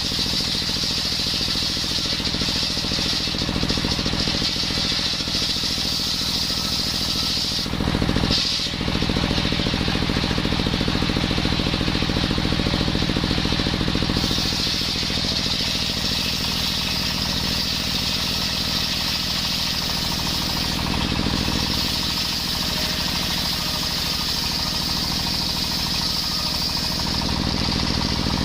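Small engine of a brushcutter-type circular wood saw running steadily, its blade cutting coconut wood with a high whine over the engine note. The whine breaks off briefly about eight seconds in.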